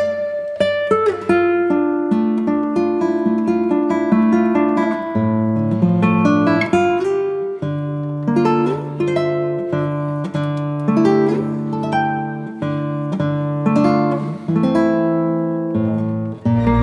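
Background music: plucked acoustic guitar playing a melody.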